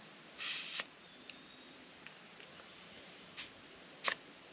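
A short burst of hissing air at a mower tire's valve stem as the air hose chuck is pressed on while the tire is brought to near max pressure, then two sharp clicks. Crickets chirp steadily underneath.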